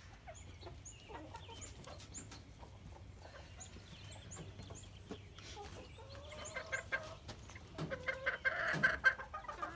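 A flock of chickens clucking, with scattered short high chirps and a louder run of clucks near the end.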